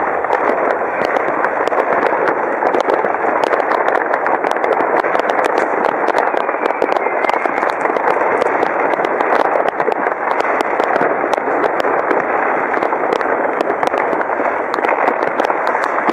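Many fireworks and firecrackers going off at once: a dense, continuous din of distant bangs with countless sharp cracks and pops on top.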